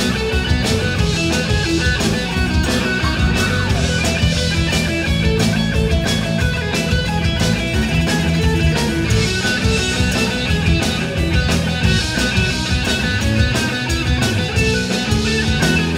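Live rock band playing: a Stratocaster-style electric guitar through a Fender combo amp over a drum kit, with steady drum beats and sustained low notes underneath.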